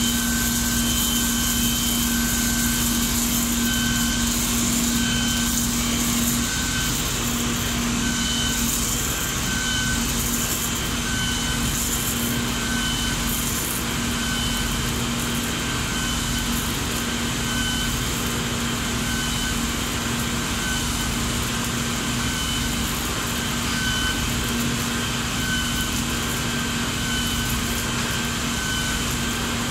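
Fire engine running steadily at high revs to drive its water pump, with a constant low hum, over the steady hiss of water jets. A short electronic warning beep repeats about once a second.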